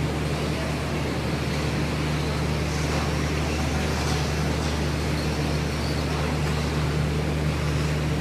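Radio-controlled stock trucks racing on an indoor dirt track, heard faintly over a steady low hum and hiss of the hall.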